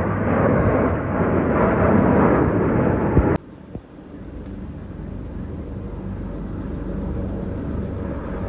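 Formation of fighter jets flying past with a loud, rushing jet roar that cuts off abruptly about three seconds in. A quieter low rumble with a fast rotor beat follows, from a formation of military helicopters, slowly growing louder.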